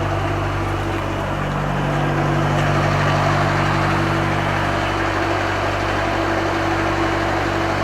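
Heavy truck's diesel engine idling steadily, a low even hum.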